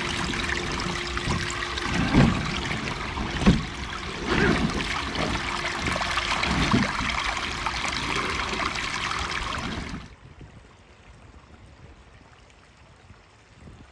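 Creek water splashing and trickling around the tyres of an Axial SCX6 1/6-scale RC crawler as it climbs over rocks, with a steady motor hum coming and going and two knocks a second or so apart near the start. About ten seconds in the sound drops to a much fainter, more distant trickle.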